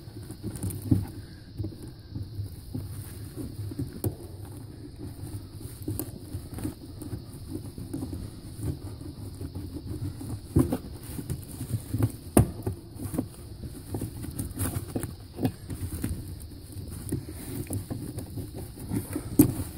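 Irregular clicks, knocks and rustling of hands working at a residential air handler while its blower speed is being changed, over a steady low hum.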